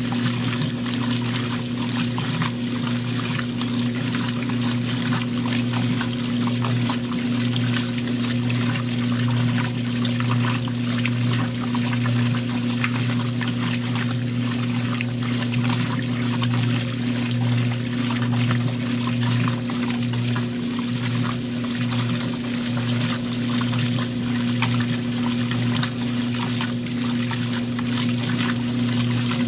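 1962 RCA Whirlpool LJA70 washing machine with water pouring and trickling into the tub over a steady low electrical hum.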